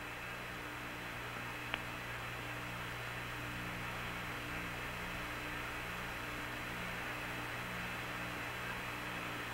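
Background noise of the Apollo 11 air-to-ground radio link with no one talking: steady hiss and a low hum, with a low tone that pulses on and off in a steady rhythm. One short click about two seconds in.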